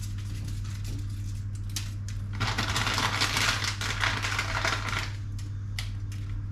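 A packet of dried bay leaves rustling and crinkling as it is handled, densest for a couple of seconds in the middle, with scattered light clicks and a steady low hum underneath.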